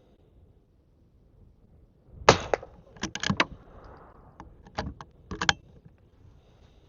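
Henry lever-action .22 rifle being fired and cycled. There is a sharp crack about two seconds in, then several quick groups of hard metallic clacks from the action.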